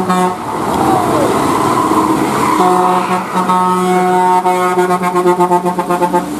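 Bus air horn sounding: a short honk at the start, then a long steady single-pitched blast from about two and a half seconds in until near the end, broken once briefly, over the running of bus engines.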